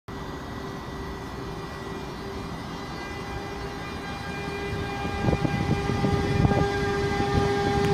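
Bombardier TRAXX class 186 electric locomotive with a train of coaches approaching, with a steady whine and rumble that grow louder. Wheels clatter over the track from about five seconds in.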